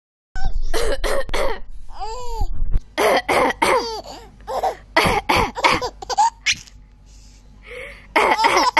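A person coughing in short, sharp fits, each answered by a baby's high-pitched laughter. The two alternate several times.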